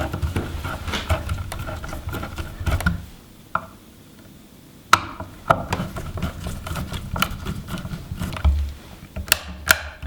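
Clicks, taps and scraping of a three-gang light switch and its wires being worked into a plastic electrical box, with a lull in the middle and sharp clicks again in the second half.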